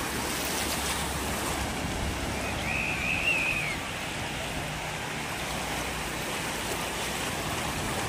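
Sea surf washing steadily onto a shallow sandy beach, small waves breaking and running up the sand. A brief high wavering tone is heard about three seconds in.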